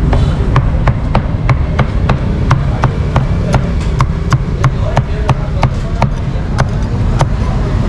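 Cleaver chopping crispy roast pork on a chopping block, with even chops about three a second. A steady low rumble runs underneath.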